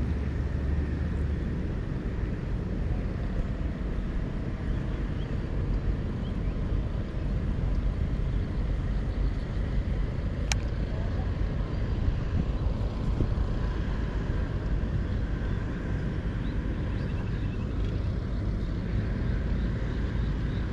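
Wind rumbling steadily on the microphone, with a single sharp click about ten seconds in.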